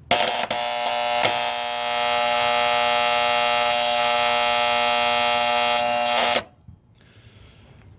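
A heat pump's bad contactor buzzing loudly while energised. It is a hard, steady electrical buzz that starts suddenly with a click, has another click or two in its first second and a half, and cuts off abruptly after about six seconds.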